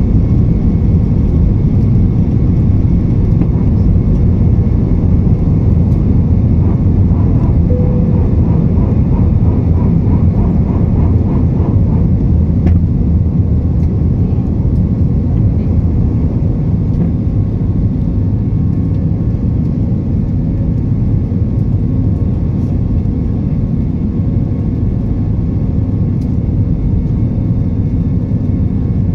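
Airbus A320 jet engines at takeoff thrust, heard inside the cabin by a window over the wing: a loud, steady, low-pitched noise through the end of the takeoff roll, liftoff and initial climb, easing slightly in the second half.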